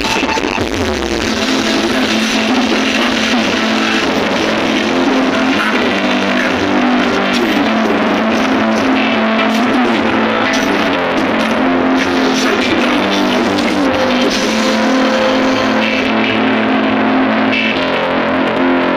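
Loud music with guitar, played at high volume through a big JBM Audio sound-system rig.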